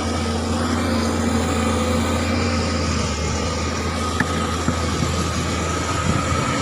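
Sany excavator's diesel engine running steadily under load as the machine climbs a steep slope, a constant low drone with a steady pitched whine above it.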